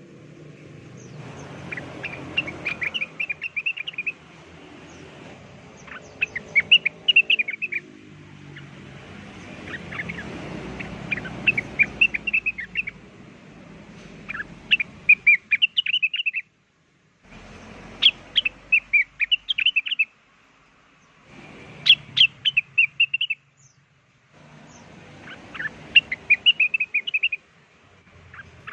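Cucak wilis (rengganis) song played as a bird-lure call: repeated phrases of rapid, high chirps, each about two seconds long, separated by short pauses.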